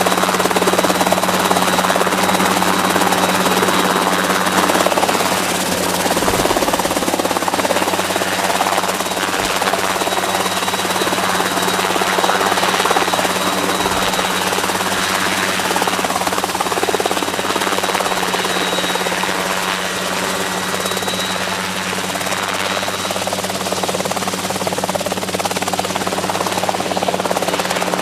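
Ultralight helicopter running steadily: a constant low engine-and-rotor hum under a dense whooshing noise, with a faint steady high whine.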